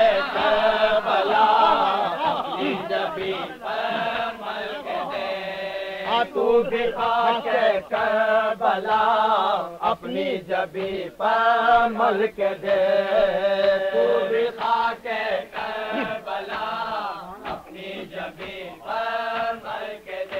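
Several men's voices chanting a Shia salam unaccompanied, together in chorus.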